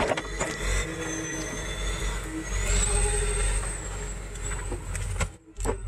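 Kobelco SK045 excavator's diesel engine running as the machine walks on its tracks, a steady low drone with a high thin whine over it. The sound drops out briefly near the end.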